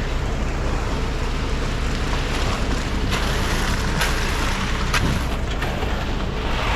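Heavy engine of the concrete-pour machinery running steadily, with a few sharp scrapes or knocks of tools and concrete about halfway through.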